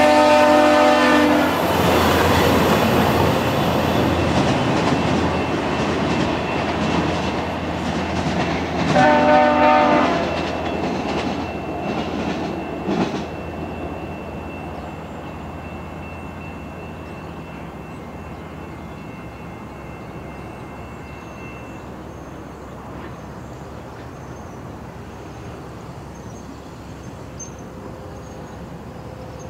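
VIA Rail passenger train hauled by an F40PH-2 locomotive receding at speed. Its horn sounds and cuts off about a second and a half in, with one more short blast about nine seconds in, while the rumble of the wheels fades away over about fifteen seconds.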